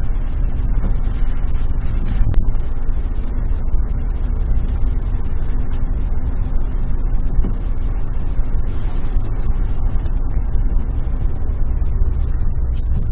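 Suzuki Jimny Sierra driving, a steady low engine and road rumble picked up by the dashcam inside the cabin, with scattered small clicks and one sharper click a couple of seconds in.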